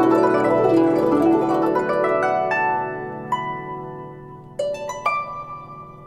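Guzheng (Chinese zither) music coming to its end: the busy, full playing thins out to single plucked notes that ring and die away, the last ones struck about five seconds in.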